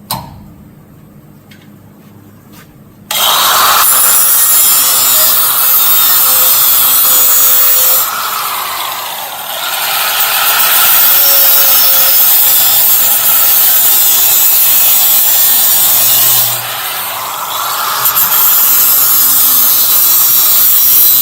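Hand-held angle grinder biting into a small sheet-steel patch piece, a loud harsh grinding and cutting noise that starts about three seconds in. It eases off briefly twice as the tool comes off the metal, then bears down again.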